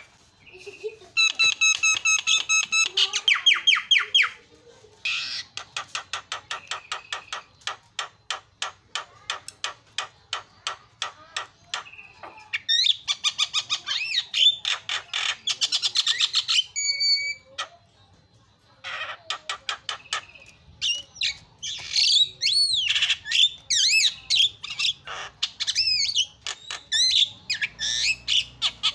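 Javan myna singing a long, varied song: clear whistled notes, then a fast run of clicking ticks, harsh rattling chatter, and after a short pause, warbling notes that slide up and down.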